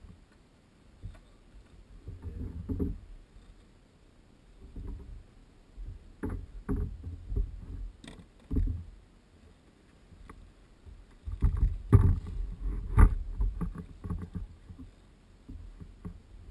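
Water splashing and sloshing around kayaks on calm sea, with irregular low knocks and bumps against the hulls, loudest in a cluster about two-thirds of the way through.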